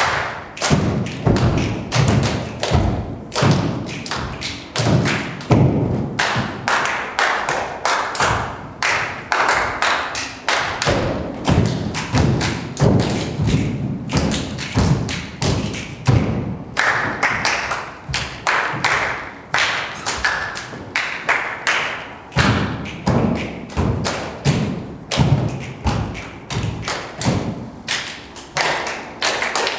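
Body percussion by a group of performers: many rhythmic thumps and taps, several strokes a second, in a dense, unbroken pattern.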